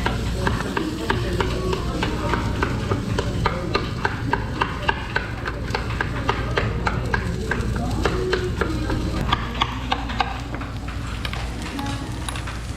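Metal spatulas clicking and scraping on a teppan griddle in quick, irregular strokes, several a second, over a steady low hum.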